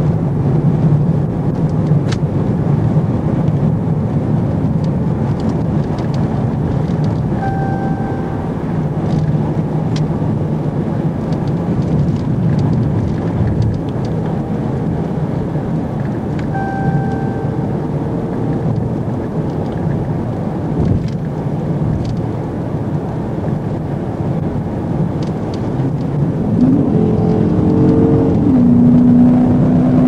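Patrol car's engine and tyre noise heard from inside the cabin, running steadily at highway speed. Short electronic beeps sound twice, about 8 and 17 seconds in. Near the end the engine's pitch climbs as the car accelerates hard, then holds high.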